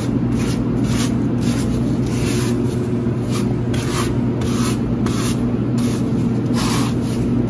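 Grout being worked across floor tiles: a series of irregular rubbing, scraping strokes, about one or two a second, over a steady low hum.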